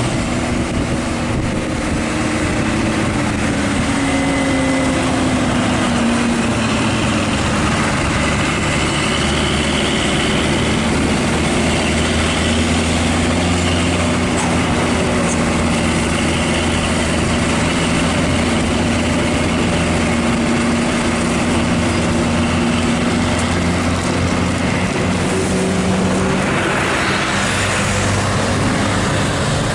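Heavy vehicle engines, buses and trucks, running in slow traffic up a steep climb. The engine note sinks a few seconds in and rises again near the end, as revs change. A brief rush of noise comes near the end.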